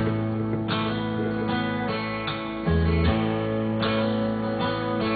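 Instrumental country music: strummed acoustic guitar over a bass line, with no singing.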